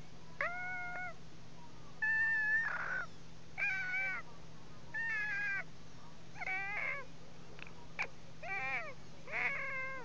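A person imitating a cat's meow with their teeth and pushed-out lips: about seven short, high, meow-like squeaks, each about half a second long, some arching up and down in pitch.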